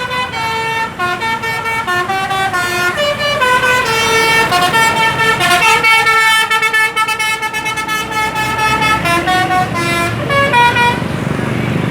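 Bus 'telolet' basuri horn, a multi-tone musical horn, playing a quick tune of stepped notes, sometimes several sounding together, over road and engine noise.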